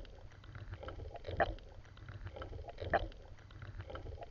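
Rhythmic strokes through water, one about every second and a half, over a low steady rumble.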